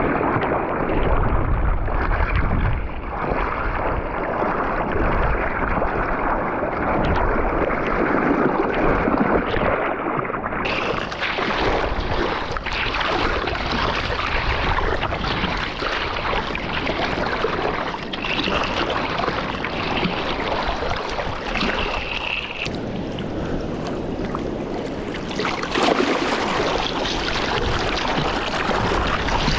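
Sea water splashing and waves washing, with wind noise on the microphone. The sound changes abruptly twice as the shots change.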